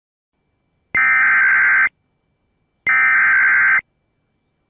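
Two Emergency Alert System header bursts, each about a second long and about a second apart: a buzzing electronic data tone that encodes the alert, here a severe thunderstorm warning.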